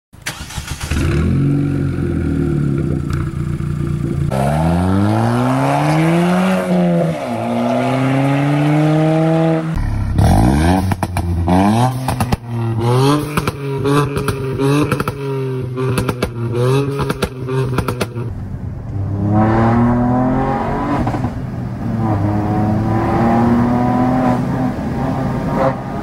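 Turbocharged three-cylinder engine of a Ford Fiesta ST (1.5 L EcoBoost Dragon) idling steadily, then revved up and allowed to fall back twice. After a cut it is blipped repeatedly, with sharp exhaust pops and crackles between blips. From about 19 s it is heard from inside the cabin, accelerating hard through several gears with the pitch climbing on each pull.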